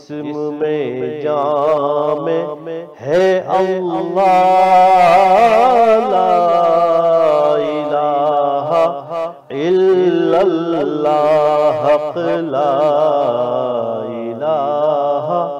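A man's voice reciting a naat in a melodious, ornamented chant, the pitch wavering and sliding through long held lines over a steady low drone. There are short pauses for breath about three seconds in and again near the middle.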